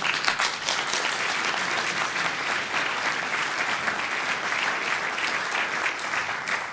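Audience applauding, a steady dense clapping that starts up at once and eases off near the end.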